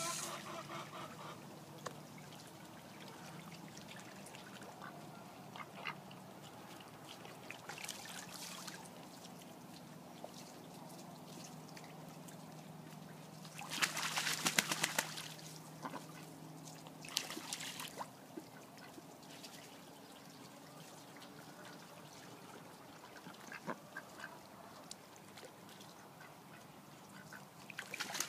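Pekin ducks splashing as they bathe and dive in a small pond, with a loud spell of splashing about halfway through and shorter splashes later, over a steady trickle of water and occasional quacks.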